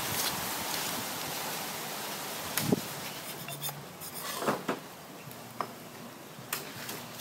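Knife cutting a raw plucked duck on a stone slab: a few brief knocks and clicks of blade and carcass handling, the loudest about two and a half seconds in, over a steady hiss.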